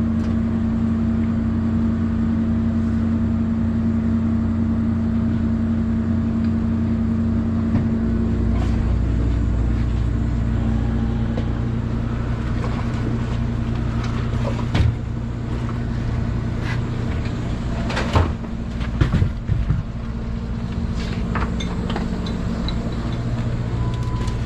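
Fishing boat's engine running steadily, a low pulsing in it smoothing out about eight seconds in, with a few sharp knocks and clatters from crab traps being handled and stacked on deck in the second half.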